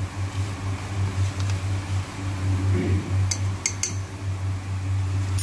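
A steady low hum, with a few sharp clinks of laboratory glassware a little past halfway through.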